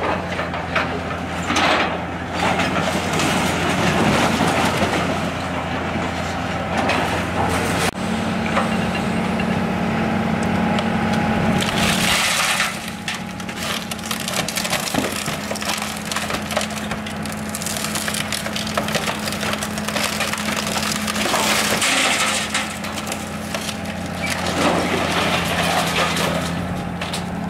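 Komatsu hydraulic excavator's diesel engine running steadily while its grapple claw crushes into a Volvo 240 sedan, with loud crunching and cracking of the car's body about twelve seconds in and again near twenty-two seconds, as the car is torn off the trailer.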